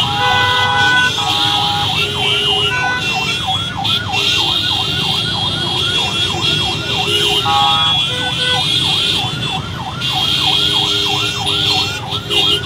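Electronic yelp siren sweeping up and down several times a second without a break, with vehicle horns blaring briefly near the start and about seven seconds in, over steady crowd and traffic noise.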